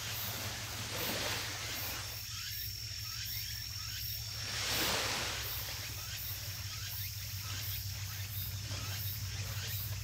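Insects chirping outdoors in a steady pulse, about two a second, with a thin steady high whine from one insect joining about two seconds in. Beneath them a steady low hum, and a rush of noise swells briefly near the middle.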